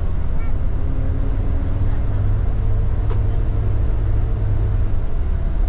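Higer coach's engine and road noise heard from inside the cab while the bus drives along, a steady low rumble with a faint hum above it.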